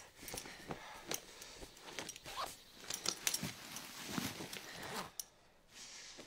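Clothing being pulled off: fabric rustling with many small, irregular clicks and clinks of metal fasteners.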